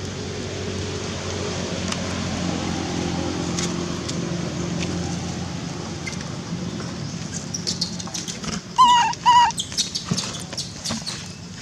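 Baby macaque giving two short, high squeaking calls about nine seconds in, with small rustles and clicks around them. A low steady drone sits underneath in the first half and fades out.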